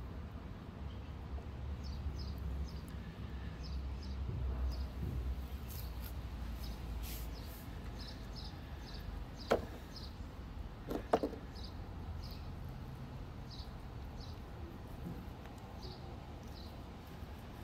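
Outdoor ambience: a steady low rumble with a bird chirping over and over in short high notes. About halfway through come two sharp knocks, rocks set down in a plastic tub of muddy water.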